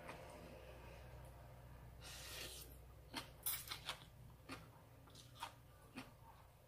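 Close mouth sounds of eating by hand: a soft slurp of rice noodles about two seconds in, then chewing with wet lip-smacks and clicks every half second or so.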